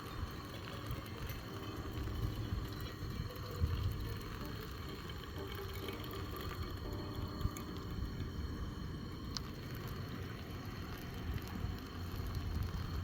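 Just-boiled water from a propane camp stove bubbling and being poured to brew coffee, liquid running into a cup, over a steady low rumble.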